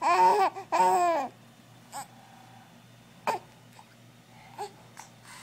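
A small child gives two high-pitched laughing squeals, then a woman hiccups three times, a little over a second apart.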